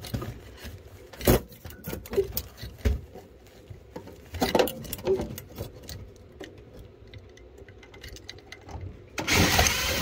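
Scattered clicks and knocks as a blower time-delay relay is handled and positioned against the air handler's sheet-metal panel. Near the end a power driver runs for about a second, driving in the relay's mounting screw.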